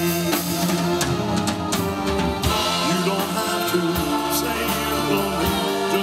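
Live band playing amplified through PA speakers: drum kit, guitar and keyboard with sung vocals.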